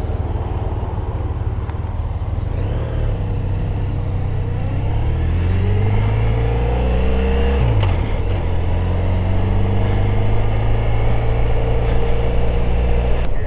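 Motorcycle engine pulling away from a junction. Its pitch rises as it accelerates and drops sharply at a gear change a little under eight seconds in, then runs steadily, with wind noise on the microphone.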